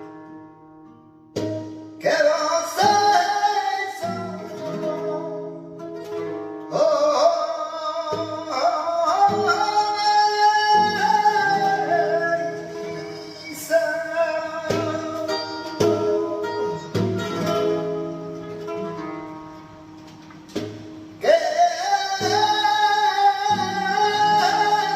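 Flamenco seguiriya: a voice singing long, wavering, melismatic phrases over plucked acoustic guitar, with a short guitar-only stretch near the start.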